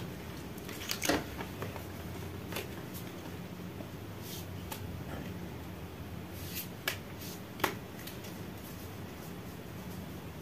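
A deck of cards being handled: a few short clicks and soft rustles as cards are shuffled and picked out, over a steady low hum.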